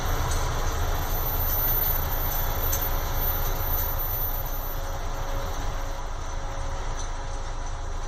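Railway track tamping machine running along the rails as it moves away, its engine and wheel noise growing gradually fainter, with a few light clicks.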